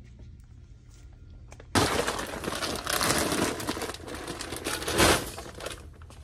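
A large plastic-laminated bag of Purina Pro Plan dry dog food crinkling loudly as it is lifted and carried, starting suddenly about two seconds in. There is a louder thump about five seconds in as it is set into the shopping cart.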